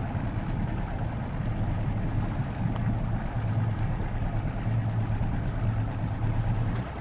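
Motorboat engine running at steady low speed, a constant low hum that eases off right at the end of the stretch.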